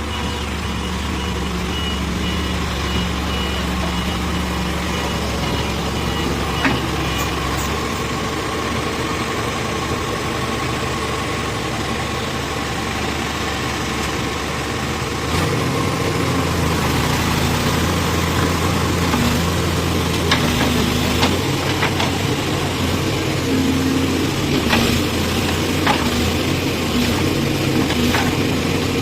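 Backhoe loader's diesel engine running steadily. About halfway through, the engine note changes and gets louder, and a few sharp knocks sound in the second half.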